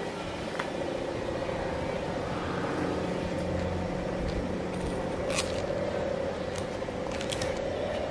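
Steady outdoor background noise with a low, even hum and a few sharp clicks, the loudest about five seconds in.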